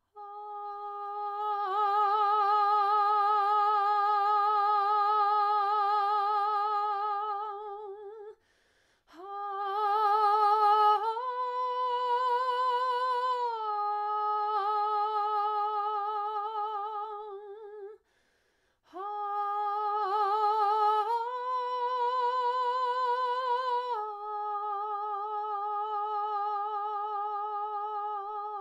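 A woman's voice toning long, sustained open-vowel notes with a wavering vibrato, for sound healing. It comes in three long breaths with short pauses between them, and in the second and third the note steps up a little for a few seconds, then settles back.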